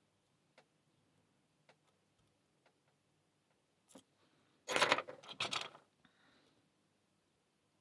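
Lock pick and tension tool working the pins of an Abus 645TI aluminium padlock: a few faint single clicks, then a louder burst of metallic rattling and clicking about five seconds in.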